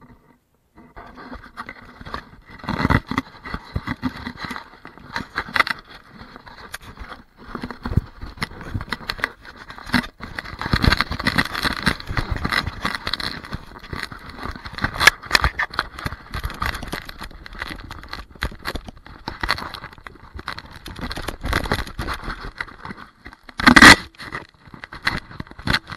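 Handling noise from a camera being moved about by hand: fabric and fingers rubbing and scraping over the microphone, with irregular clicks and knocks and one loud bump near the end.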